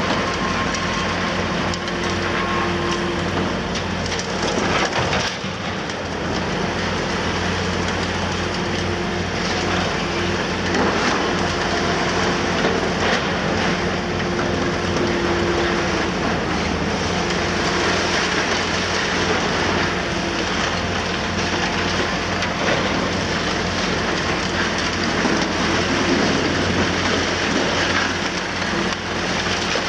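Liebherr R960 demolition excavator working: its diesel engine runs steadily under a continuous crackle and clatter of crushed concrete and falling rubble, with a faint tone that comes and goes.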